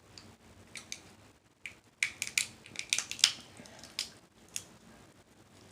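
Snow crab leg shell cracking as it is bitten and pried open by hand: a string of sharp cracks and snaps, the densest and loudest about two to three seconds in.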